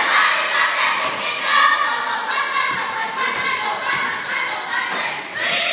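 Several spectators' voices chattering and calling out in a school gym, with a few scattered thuds.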